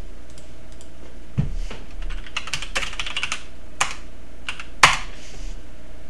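Typing on a computer keyboard: a single keystroke about a second and a half in, a quick run of keystrokes, then one louder key press near five seconds in.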